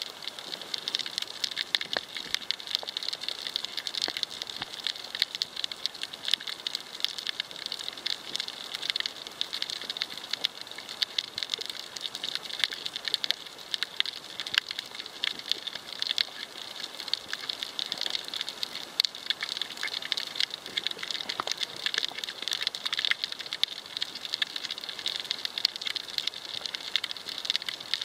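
Coral reef crackle heard underwater: a dense, steady crackling of countless tiny clicks, the typical sound of snapping shrimp colonies on the reef.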